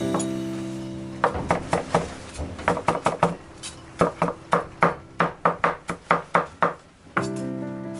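Steel cleaver chopping spring onions on a bamboo cutting board: about twenty quick knocks of the blade on the wood, some three a second, starting just over a second in and stopping near seven seconds. A sustained music chord sounds before and after the chopping.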